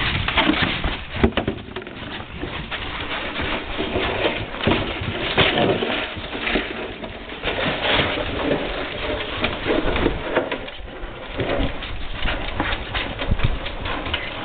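French bulldog puppies grunting and play-growling as they wrestle, with irregular scuffling and knocking from paws and a plastic milk jug on wooden boards.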